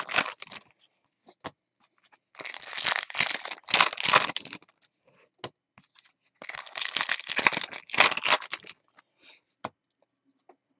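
Hands handling a stack of trading cards and their packs: three bursts of rustling and crinkling, each about two seconds long, with short gaps between.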